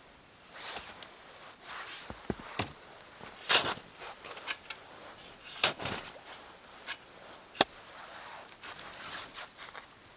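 Scattered clicks, knocks and short crunching rustles of something being handled or moved, with louder crunches about three and a half and six seconds in and a sharp click a little before eight seconds.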